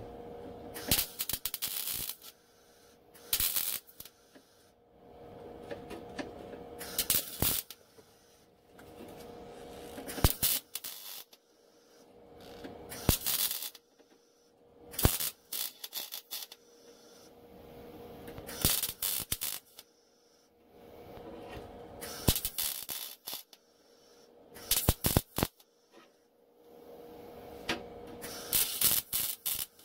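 Welding arc crackling in about ten short bursts a few seconds apart, spot welds laid one after another to fix a sheet-metal patch to a car's trunk floor. A steady low hum carries on between the welds.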